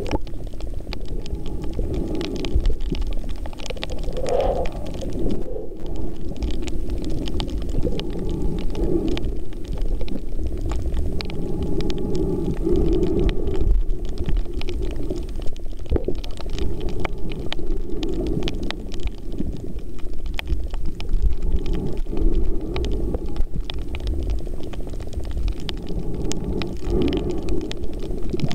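Underwater sound picked up by a camera held below the surface on a reef: a muffled low rumble of moving water, swelling every few seconds, with a constant fine crackle of clicks of the kind snapping shrimp make.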